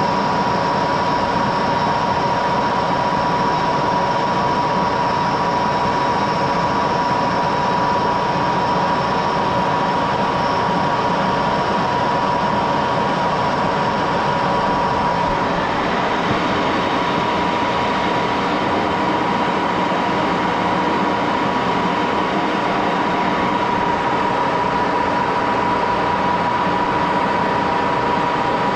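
An 80-year-old Axelson heavy-duty gear-head engine lathe runs steadily, with a constant high whine, while a ground carbide tool cuts along a 3/8-inch O1 drill rod steadied by a follow rest.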